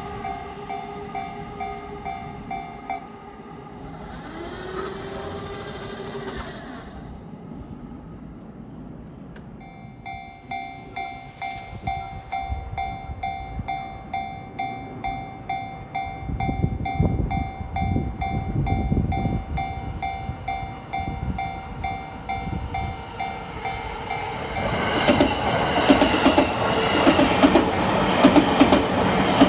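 Japanese level-crossing alarm ringing, a pulsed electronic bell about twice a second, which pauses and starts again partway through. Near the end a Yamanote Line commuter train runs over the crossing close by and grows loud, its wheels clacking rhythmically over the rail joints.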